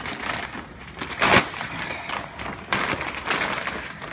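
Plastic boat shrink-wrap film crinkling and rustling as it is folded under and tucked behind a baler-twine band, with a sharp louder crackle about a second in.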